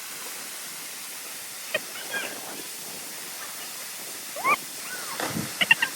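A few short animal calls that glide up and down in pitch, two early and a quicker cluster near the end, over a steady background hiss.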